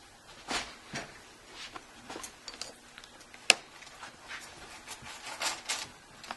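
Plastic pry pick scraping and clicking along the seam of a Kindle Fire HD's back cover as it is worked around the edges. Irregular short clicks and scrapes, with one sharp click about three and a half seconds in.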